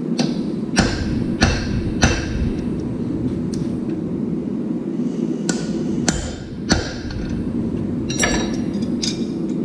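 Hand hammer striking a red-hot steel horseshoe over the edge of the anvil, beginning to form a clip from the bubble pushed out of the shoe's edge. The blows come in three short runs, a little under two a second, over a steady low hum.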